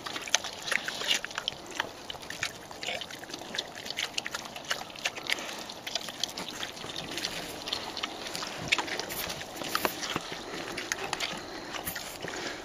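Wild boar eating a raw fish: an irregular run of chewing and crunching bites.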